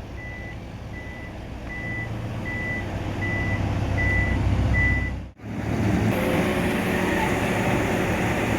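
A heavy construction vehicle's reversing alarm beeping steadily, one high beep about every 0.7 s, over the low rumble of its engine. About five seconds in the beeping stops, and a louder steady machinery drone with a low hum takes over.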